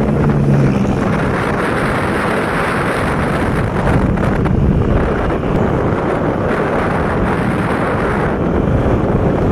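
Wind buffeting the microphone on a moving vehicle, mixed with engine and road noise.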